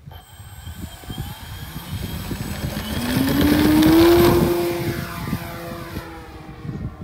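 Electric RC model airplane (Hangar 9 Ultra Stick) with a DualSky ECO brushless motor turning a 14×6 wooden propeller, throttling up for takeoff: a buzz that rises in pitch, with a thin high whine over it. It is loudest about four seconds in as the plane passes, then falls in pitch and fades as it climbs away.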